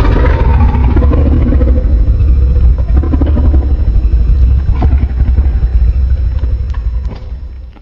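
Loud, deep rumbling sound effect made for a monster comic. Falling tones sound over it for the first two seconds, there are scattered crackles, and it fades out near the end.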